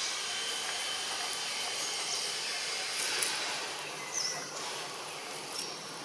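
Steady outdoor hiss of insects, with a few faint high tones in it and a couple of short high chirps about four seconds in.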